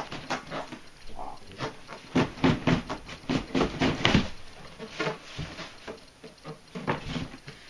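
Hands working the lid off a large cardboard box: a rapid run of cardboard scraping, rubbing and tapping, busiest and loudest in the middle.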